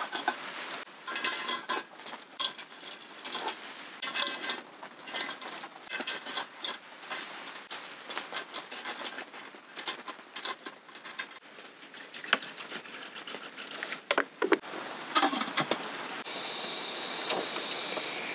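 Cooked red snow crab legs being piled into a stainless-steel pot on a metal steamer basket: the hard shells clack and scrape against the steel and each other in irregular clicks and clatters. In the last two seconds a steady hiss takes over.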